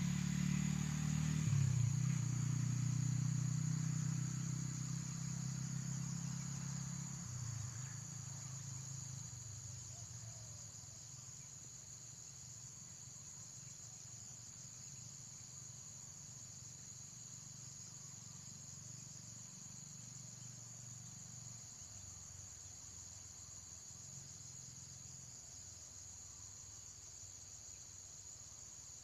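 Steady high-pitched insect trilling throughout. A low rumble is loudest at the start and fades away within the first ten seconds or so.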